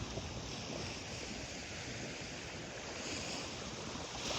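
Small, gentle waves washing on a beach, with some wind buffeting the microphone; a calm sea.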